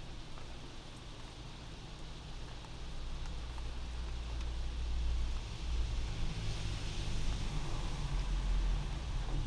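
Steady rain heard from inside a house, with a car passing on the wet street outside: a low rumble and tyre hiss build from about the middle and are loudest near the end.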